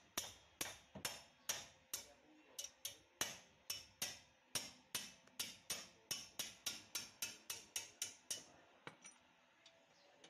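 Hammer blows on the metal of a car's rear wheel hub assembly: about thirty sharp, ringing strikes, speeding up from about two a second to about four or five a second and stopping about eight seconds in, struck to work the hub loose.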